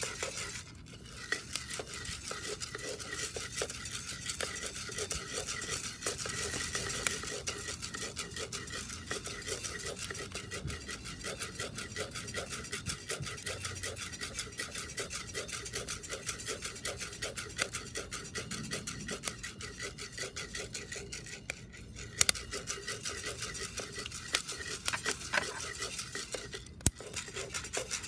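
Coffee beans being stirred with a wooden spatula in a round-bottomed cast iron pot while roasting: a fast, even rattle and scrape of beans against the iron, with a few sharper clicks.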